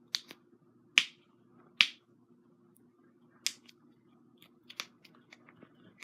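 A person's joints cracking: a series of sharp pops, the two loudest about one and two seconds in, another near the middle, then smaller clicks toward the end.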